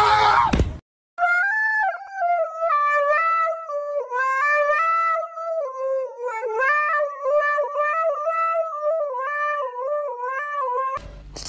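Husky howling in long, wavering, song-like notes into a toy karaoke microphone.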